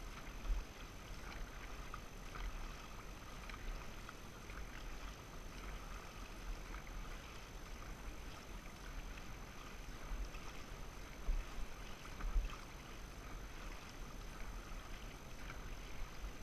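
Dragon boat paddles dipping and pulling through lake water in steady strokes, with water rushing past the hull and low wind rumble on the microphone.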